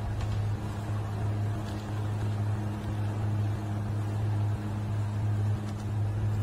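A steady low hum with a deep, unchanging pitch.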